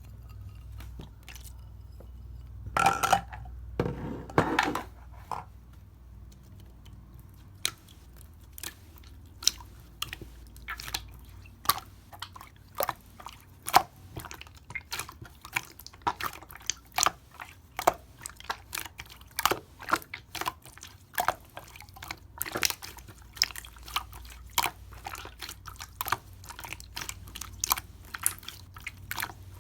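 Crunchy chewing: a long irregular run of short, crisp crunches, about one or two a second, with a louder rustling stretch a few seconds in.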